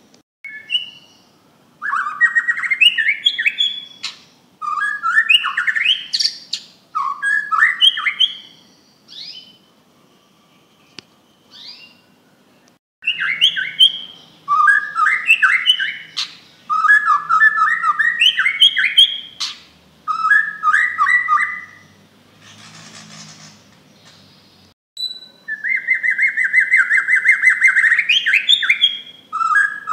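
Bornean white-rumped shama (murai batu) singing loudly: a string of fast, varied phrases of rapid whistled notes, each a second or two long with short pauses between, and a long rapid trill near the end.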